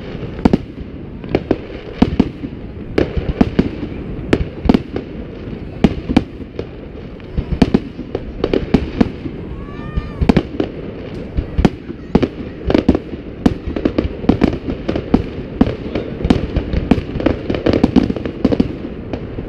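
Fireworks exploding in irregular, rapid succession, sharp bangs several per second over a continuous rumble of overlapping blasts, with a short whistle about ten seconds in.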